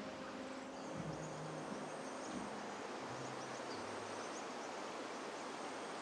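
Outdoor bush ambience: a steady wash of wind through eucalyptus leaves with faint, high insect-like chirps. A few low sustained music notes fade out over the first few seconds.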